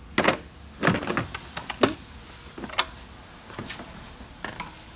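A handful of sharp knocks and clicks, most in the first two seconds, as the loose plastic intake plenum of a 2.7 V6 is handled and turned over, its loosened bolts knocking in their holes.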